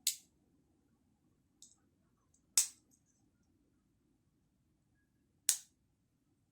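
Three sharp clicks, a couple of seconds or more apart, from a Victorinox Forester pocket knife's blade snapping open or shut into its lock.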